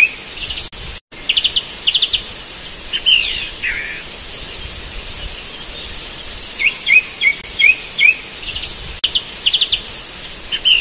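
Birds chirping: runs of short rising chirps and quick trills over a steady hiss, the same sequence of calls coming round twice as if looped.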